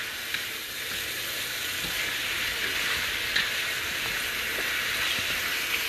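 Shrimp and vegetables sizzling in a hot pan on high heat, a steady frying hiss with a few light clicks of a stirring utensil.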